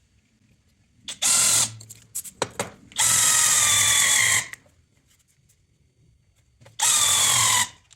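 Cordless impact wrench driving an HMT hole-making bit into 10 mm steel plate in three short bursts, the longest in the middle, its whine dropping in pitch as each burst goes on and the bit loads up.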